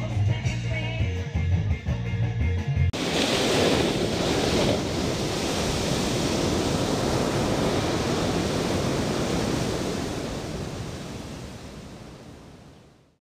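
Background music with a heavy bass for about three seconds, cut off suddenly by the rushing, static-like noise of an animated logo intro. The noise holds steady, then fades away over the last few seconds.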